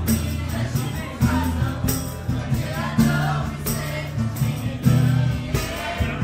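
Live song with a woman singing to acoustic guitar and bass, over a steady percussive beat.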